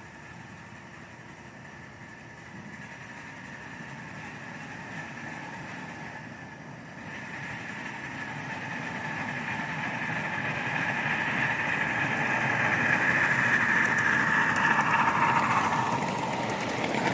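Ride-on miniature railway train approaching along the track, its running noise growing steadily louder, loudest near the end.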